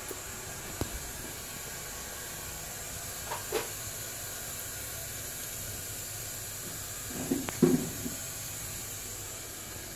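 Steady background hiss, broken by a few short knocks, the loudest a quick cluster about seven and a half seconds in.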